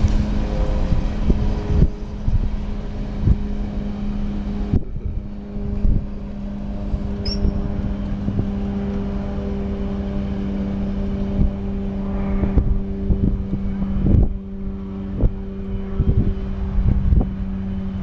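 CSX coal train rolling away, a steady low hum with rumbling underneath, its higher-pitched noise dropping away about five seconds in, while wind buffets the microphone.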